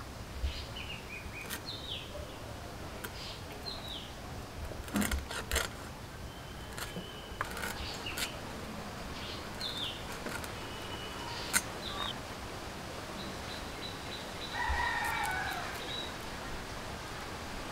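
Sharp clicks and snips of a blade cutting through a pomfret's fins and tail, a few at a time, the loudest about two thirds of the way in. Behind them small birds give short falling chirps, and a chicken calls for a second or so near the end.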